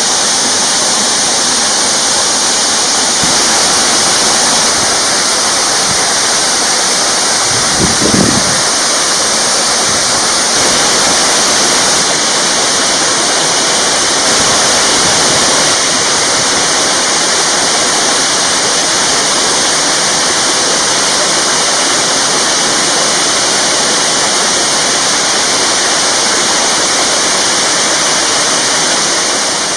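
Waterfall with a steady, loud rush of falling water, and one brief low thump about eight seconds in.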